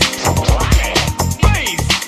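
Miami bass dance music: deep, booming bass-drum hits about twice a second under synth lines.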